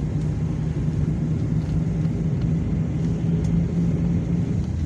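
Steady low rumble of a moving public-transport vehicle heard from inside the cabin, with a steady low hum that drops away near the end.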